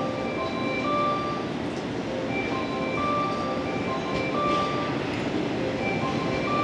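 A JR West 115-series electric multiple unit rolling slowly into the station past the platform. Its steady running noise carries short, high-pitched ringing tones of changing pitch that come and go.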